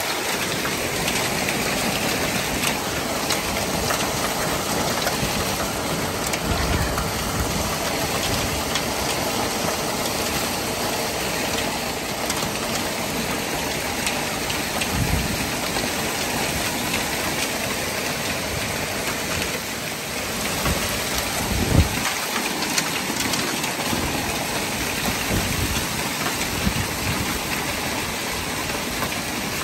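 Heavy wind-driven rain and hail pelting down in a severe storm: a dense, steady hiss with scattered sharp ticks of hailstones striking. A few low thumps break through, the loudest about two-thirds of the way in.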